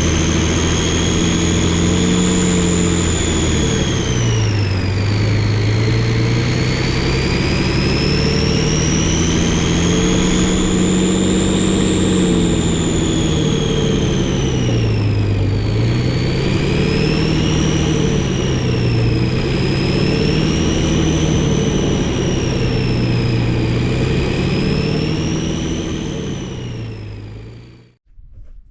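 Multifuel diesel engine of an M54 5-ton 6x6 military truck pulling a load, its engine speed rising and falling several times as it is driven. The sound fades out shortly before the end.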